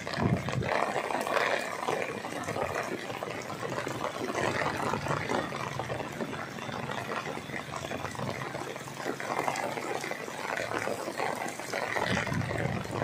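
Heavy rain falling, a dense steady hiss of many small drop impacts, with gusts of wind rumbling on the microphone just after the start and again near the end.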